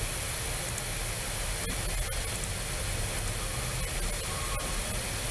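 Steady hiss of microphone background noise, with a few faint mouse clicks about two seconds in and again near the end.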